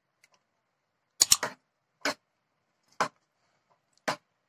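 A spoon knocking against the side of a kadai while thick curry gravy is stirred. A quick cluster of knocks comes about a second in, then single knocks about once a second.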